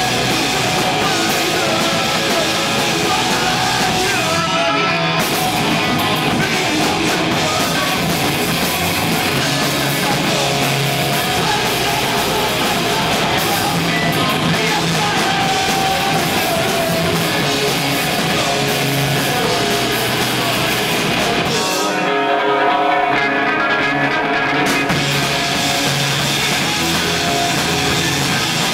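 Rock band playing live on electric guitars, bass guitar and drum kit.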